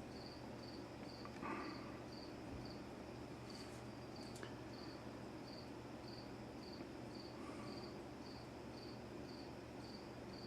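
A cricket chirping steadily, about two to three short high chirps a second, over a faint steady low hum.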